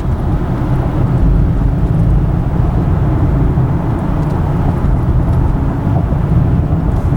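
A car driving, with a steady low rumble of road and engine noise heard from inside the cabin.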